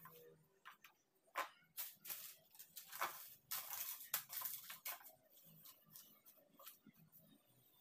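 Handling noise of groceries being packed away: rustling and light knocks, busiest in the middle few seconds, then only a few faint ticks.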